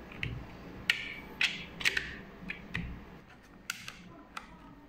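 Sharp plastic clicks and knocks from a sealed lead-acid battery's plastic top being handled and pressed, loudest in the first two seconds. Near the end come a few lighter clicks as a digital multimeter's rotary selector dial is turned.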